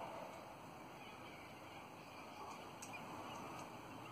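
Faint, scattered calls of twenty-eight parrots (Australian ringnecks) feeding, over a quiet outdoor background hiss, with a couple of short sharp ticks about three seconds in.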